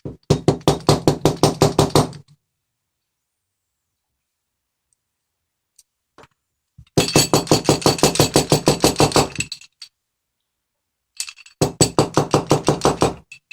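Three runs of rapid tapping, about nine strikes a second, on the metal body of a large Multilock C10 padlock, with a ringing clink to each strike: tapping to drive out the retaining pin that holds the shackle in, which is moving but not yet out.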